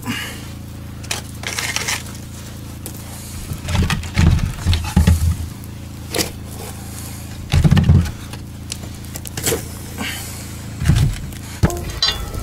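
Split firewood being loaded by hand into a brick stove's firebox: logs knocking and scraping against each other and the opening, with a few dull thumps.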